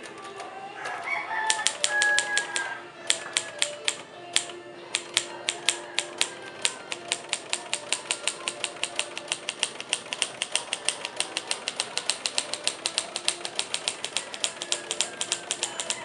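Royal Aristocrat manual typewriter being typed on, its typebars striking in sharp clacks. Short runs with pauses come first, then a steady run of about five keystrokes a second.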